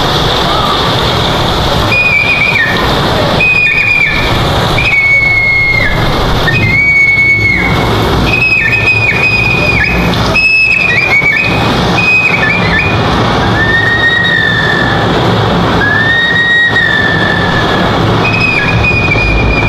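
Dizi (Chinese bamboo transverse flute) playing a slow solo melody of long, high held notes with bends and quick grace-note ornaments, starting about two seconds in. Steady low background noise throughout.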